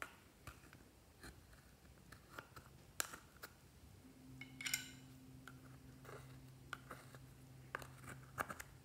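Faint scattered scrapes and clicks of a metal spatula digging pressed eyeshadow out of a palette and of small pieces set down into a glass tray, with a quick flurry of ticks about halfway through. A low steady hum comes in about four seconds in and stops near the end.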